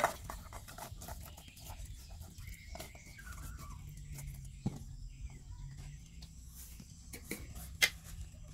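Lemongrass stalks and a whole catfish being handled and packed into a metal pot: scattered light rustles, clicks and knocks against the pot, with a sharper knock at the start and another near the end. Short animal calls sound in the background around the third second.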